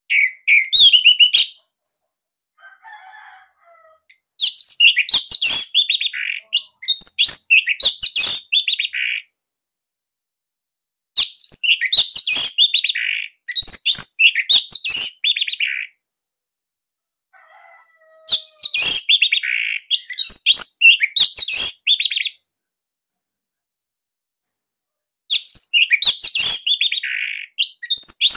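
Orange-headed thrush (anis merah) singing a dense, loud song. It comes in phrases of rapid, varied high notes several seconds long, separated by pauses of two to three seconds, with a few faint, softer notes in two of the gaps.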